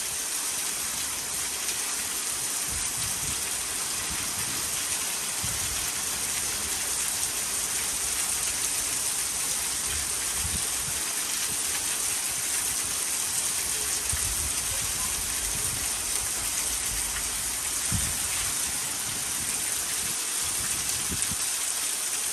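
Heavy rain falling steadily, with rainwater pouring off the edge of a porch roof onto the grass. A few soft low thumps come now and then.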